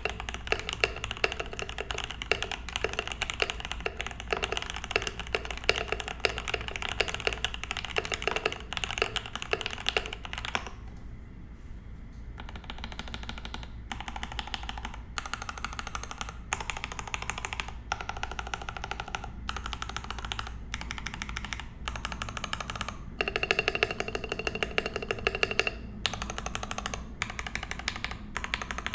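Typing on a mechanical keyboard with lubed and filmed Gateron Oil King linear switches in a brass plate, dampened with a silicone pad: fast, dense keystrokes at first, then slower, separate key presses from about ten seconds in.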